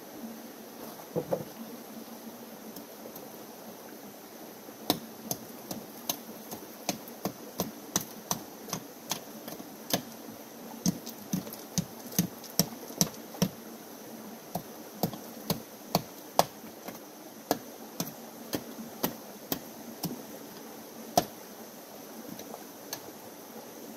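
Hand digging of gravel at the base of a creek bank: a string of sharp, irregular knocks of a hand tool and stones, about two a second, stopping shortly before the end. The creek runs steadily underneath.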